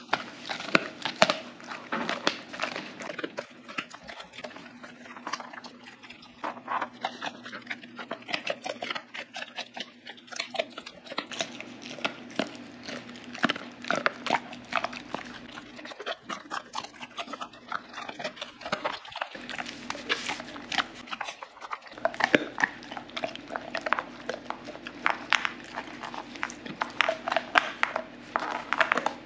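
A Doberman chewing a frozen meaty pork bone: irregular crunching, cracking and gnawing as teeth work on frozen meat and bone.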